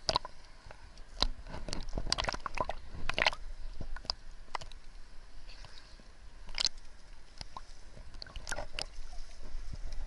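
Sea water sloshing and splashing around a camera held at the waterline, with irregular sharp knocks and splashes as it dips under and surfaces.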